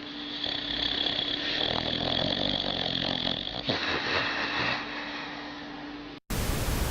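A sleeping dog snoring over a steady background hum. About six seconds in the sound cuts out briefly and a short burst of hiss follows.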